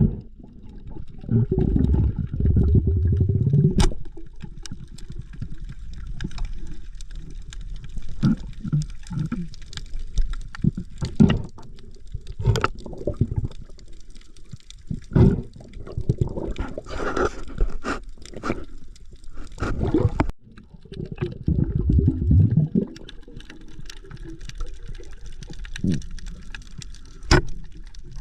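Underwater water noise, gurgling and bubbling, with scattered sharp clicks and knocks and two stretches of loud low rumbling, one near the start and one about three quarters of the way through.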